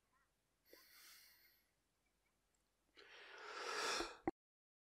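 Near silence, then about three seconds in a man's long, breathy open-mouthed exhale swells for about a second. It ends in a small click, and the sound cuts off suddenly.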